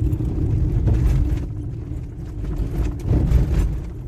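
A vehicle driving on a dirt desert track, heard from inside: a steady low rumble of engine and tyres, with a few knocks and jolts from the rough surface.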